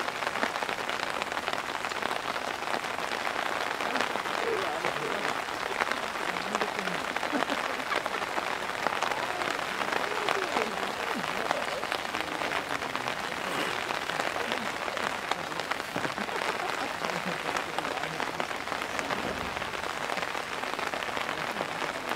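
Downpour: heavy rain falling steadily, a dense patter of drops on surfaces, with faint distant voices under it.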